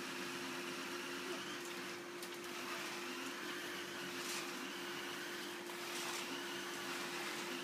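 Vacuum cleaner running steadily with a constant hum, with a few brief swishes as the nozzle is moved.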